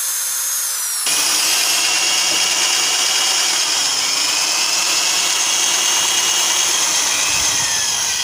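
Hand-held electric drill with a 5 mm bit drilling out a broken steel bolt lodged in an aluminium motorcycle cylinder. The motor whines steadily, and about a second in the bit bites into the metal and the sound turns louder and rougher, holding steady from there.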